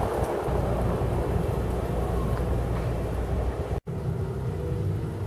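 Wind buffeting the microphone, an uneven low rumble over a steady outdoor hiss; the sound drops out for an instant about four seconds in.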